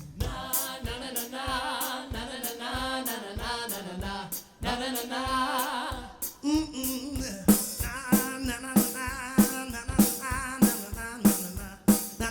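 Live soul band playing an instrumental stretch between sung lines: a drum kit keeps the beat under a wavering, vibrato lead line. About seven seconds in, the drummer's hits come in harder, about one and a half a second.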